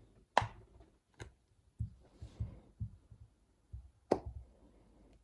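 Handling noise as an iPhone 11 Pro's display is pressed down onto its frame to close the phone: three sharp clicks with a run of soft low knocks between them.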